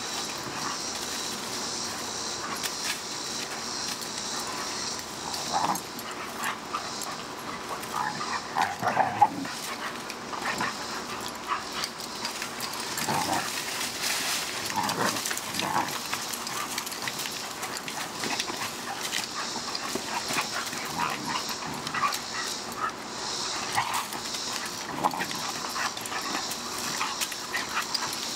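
Puppies play-fighting, giving short yips and barks scattered throughout, loudest about nine seconds in.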